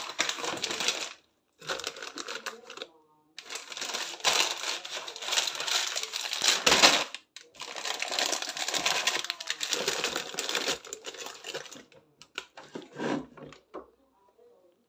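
Plastic snack packets crinkling and rustling as they are handled and packed into a clear plastic storage bin, in several long bursts with short pauses. Near the end the rustling thins to a few scattered knocks and crinkles.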